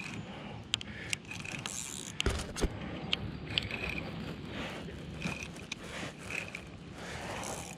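Ultralight spinning reel being cranked, its gears running with scattered sharp clicks.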